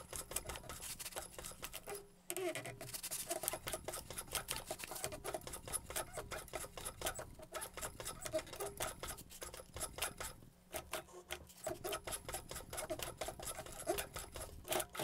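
Juki 1541 walking-foot industrial sewing machine turned slowly by hand through thick leather, giving irregular clicks from the needle and feed mechanism with rubbing and scraping of the leather and fabric being pushed along by hand. The material will not feed on its own, so it is advanced a little at a time between stitches. A faint steady hum lies underneath, and the clicking pauses briefly about two seconds in and again around ten seconds.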